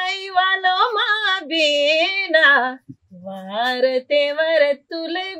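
A woman singing an Adivasi folk song, unaccompanied, in long held notes that waver and bend, with a brief breath pause about three seconds in.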